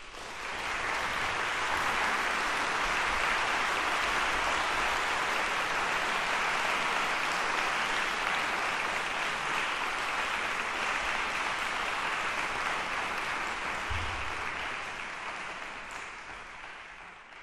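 Audience applauding in a concert hall, swelling within the first second, holding steady, then dying away near the end.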